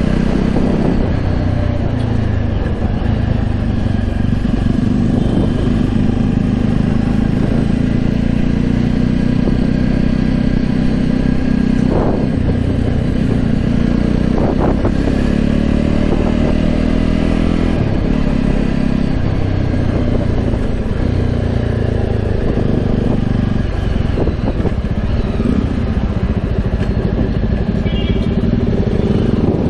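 Jawa motorcycle's single-cylinder engine and exhaust, heard from the saddle while riding in traffic. The pitch rises and falls as the bike speeds up and eases off, settling lower as it slows almost to a stop near the end.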